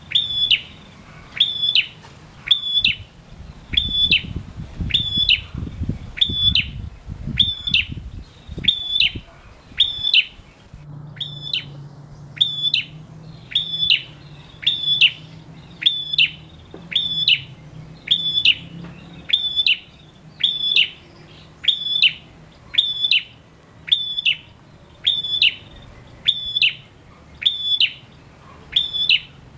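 Male ashy tailorbird, the bird-keepers' 'prenjak', singing: one short, sharp, high-pitched note repeated in a steady rhythm, about three notes every two seconds.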